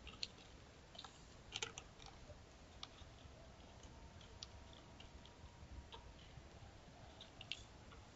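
Faint, irregular clicks and scratches, a porcupine's claws on a wooden stump as it climbs, over near silence.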